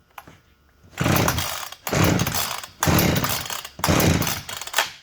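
Husqvarna 455 Rancher chainsaw's starter rope pulled four times in a row, the engine cranking over without firing during a compression test with the gauge in place; the reading comes to about 148.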